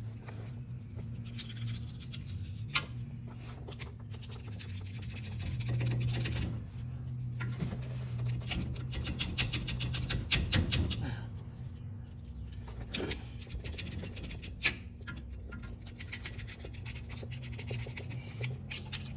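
Hand work on a quick-change rear end at the pinion: metal clicking and scraping, with a fast, even run of clicks about halfway through, like a ratchet being worked. A steady low hum runs underneath.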